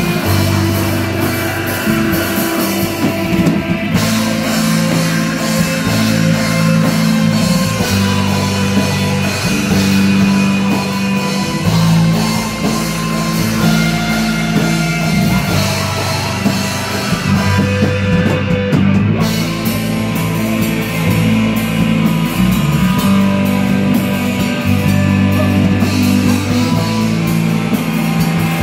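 Heavy metal band playing live: distorted electric guitars, bass guitar and drum kit in a slow, heavy riff of long low chords that change every second or two. The cymbals drop out briefly about two-thirds of the way through.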